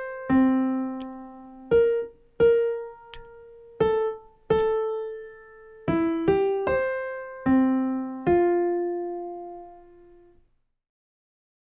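Digital piano playing a slow melody one note at a time, about ten struck notes that each ring and decay. The last note is held and fades out near the end.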